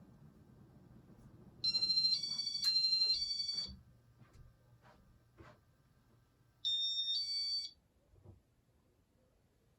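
Two short bursts of high electronic beeping, each a quick run of alternating tones, over the steady low hum of a 1995 Casablanca Panama ceiling fan motor. The motor sounds like garbage, which the owner takes for a dead motor winding. The hum fades around the second burst of beeps.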